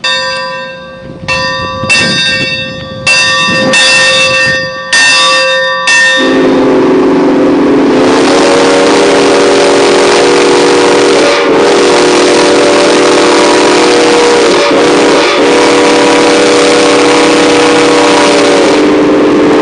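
Steam locomotive Santa Fe 3751's bell ringing with repeated strikes for about six seconds. Then its steam whistle blows one long loud blast, a chord of several notes, with two brief dips in the middle.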